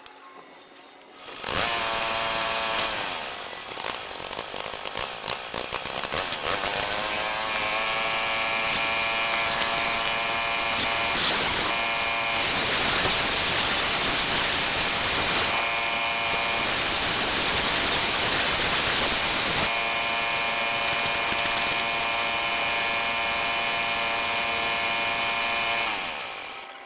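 Homemade mini milling machine's small electric spindle motor starts up and runs with a high whine under a harsh, hissing cutting noise. The whine dips and climbs in pitch over the first several seconds, holds steady, and winds down near the end.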